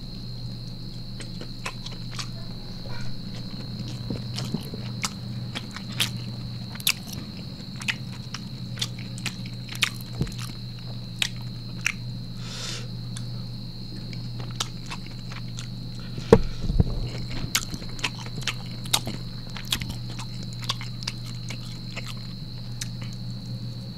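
Close-miked mouth sounds of a person eating rice, rendang and squid by hand: chewing with frequent sharp wet clicks and smacks, about one or two a second, and a louder thump about two-thirds of the way through, over a steady low hum and a faint high whine.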